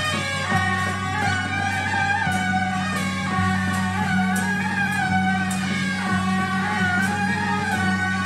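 Suona horns playing a loud, wavering, ornamented melody over steady low tones, with irregular percussion strikes.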